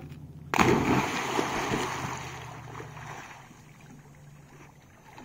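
A dog leaps into a lake and hits the water with a loud splash about half a second in, followed by churning water that fades over the next few seconds as it swims off.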